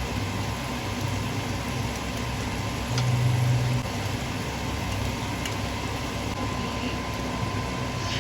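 A steady low mechanical hum over a constant noisy background, briefly louder about three seconds in.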